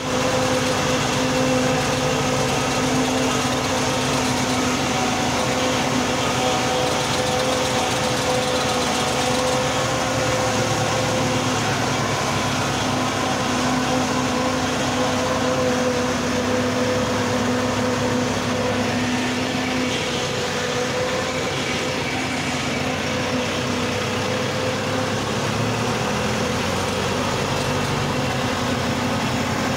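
Tractor engines running steadily at working speed together with a forage harvester chopping corn for silage: a loud, even mechanical drone with a constant-pitch hum.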